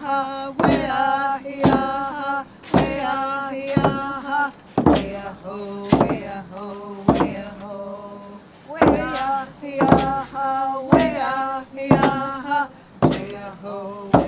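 Traditional Tlingit song: men and women singing together, with a frame drum struck steadily about once a second.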